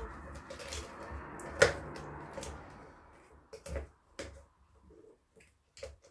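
Plastic balls rolling and clicking around an orange tiered track toy as kittens bat at them. The loudest click comes about one and a half seconds in; after about three seconds only scattered taps remain.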